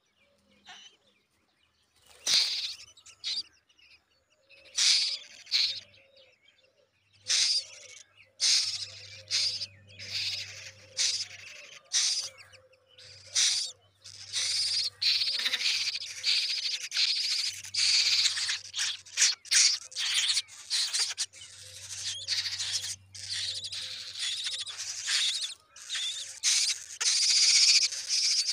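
House crow nestlings begging for food with high, noisy calls. The calls come in short separate bursts at first and run almost without a break from about halfway through.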